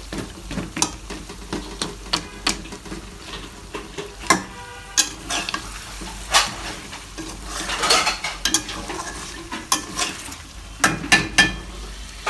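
Metal spatula scraping and knocking irregularly against a metal karahi while stirring and pressing chunks of rohu fish head in a thick simmering curry, with a frying sizzle underneath that swells briefly about two-thirds of the way through.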